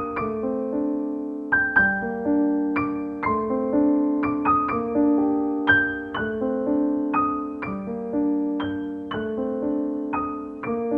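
Background music: a solo piano, playing notes and chords that are struck about once or twice a second and left to ring and fade.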